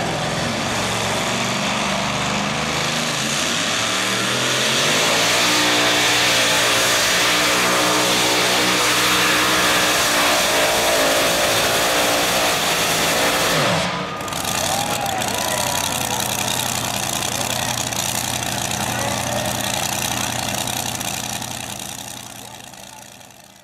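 Supercharged two-wheel-drive pulling truck's engine revving up and running at full throttle as it pulls the weight-transfer sled. Its revs drop sharply about two-thirds of the way through, then a steadier, noisier engine sound carries on until it fades out at the end.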